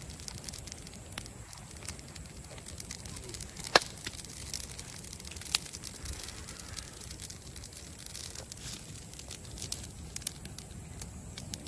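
Wood fire crackling with many small pops and a few sharper snaps, the loudest about four seconds in.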